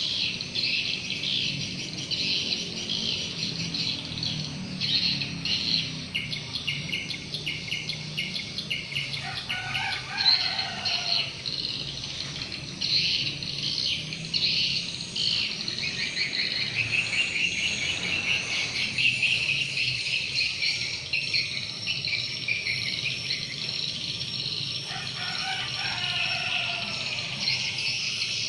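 Many swiftlets twittering at once in a swiftlet house, a dense, continuous chatter of rapid high chirps.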